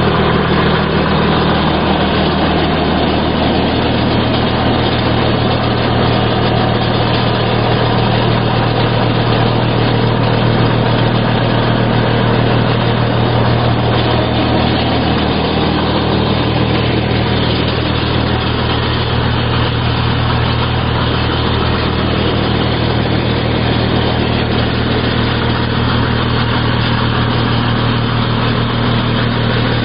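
Stihl HS45 two-stroke gas hedge trimmer running at a steady high speed while its blades cut along a shrub.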